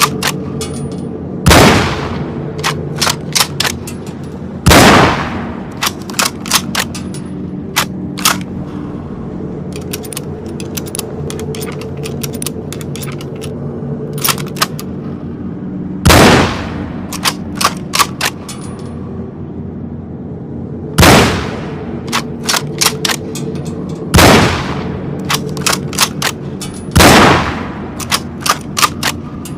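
Mosin-Nagant bolt-action rifle firing single shots: six loud reports spread irregularly over the span, each with a ringing tail. Runs of quick sharp clicks fall between the shots, over a steady low hum.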